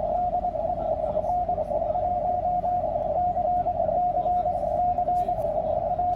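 Morse code (CW) from a ham radio transceiver: a single steady tone keyed on and off in dots and dashes, over a steady narrow band of hiss.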